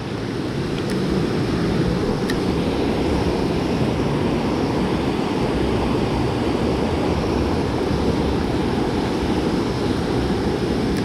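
Steady rushing of river water close by, an even noise that holds at one level.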